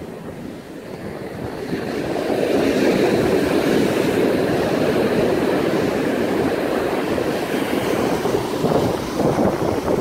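Ocean surf washing in at the water's edge, swelling louder about two seconds in and then holding steady, with wind buffeting the microphone.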